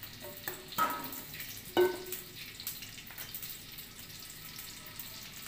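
Metal cookware clanks twice with a short ring, then cooking oil pours into a wok, a steady liquid splashing with faint crackle.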